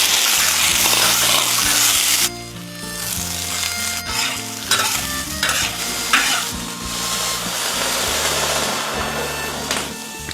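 Food frying and sizzling in hot oil while it is stirred. A loud hiss for the first two seconds or so eases to a softer, steadier sizzle with brief surges as it is turned.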